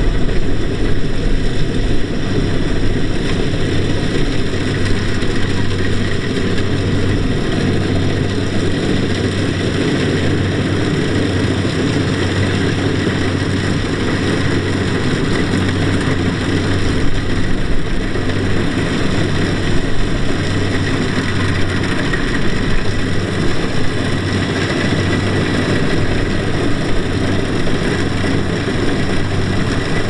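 Kubota DC-70Plus rice combine harvester's diesel engine running steadily under load as the machine cuts and threshes rice, a continuous low drone with no break.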